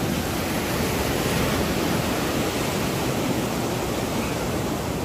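Surf washing and breaking in shallow water: a steady, even rush of waves.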